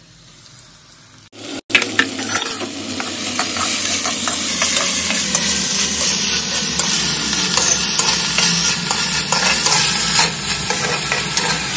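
Chopped tomatoes and potatoes frying in hot oil in a clay kadhai, sizzling loudly, while a steel ladle stirs them and scrapes against the pot. The sizzling starts suddenly about a second in.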